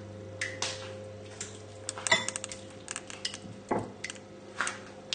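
Metal spoon clinking and scraping against ceramic dishes in irregular short knocks as bolognese sauce is spooned out and spread thin with the back of the spoon.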